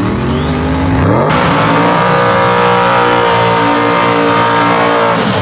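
Drag race car's engine revving during a burnout, revs climbing over the first second or so, then held high and steady while the rear slicks spin and smoke on the pavement.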